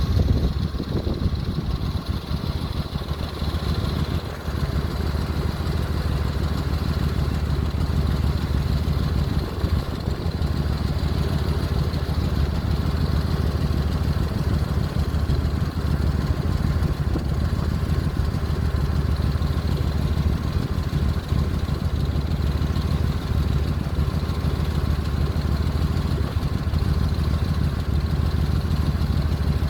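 The Oasis cruise ship's engines running steadily: a low rumble with a rapid putter, like a pickup truck with an exhaust leak.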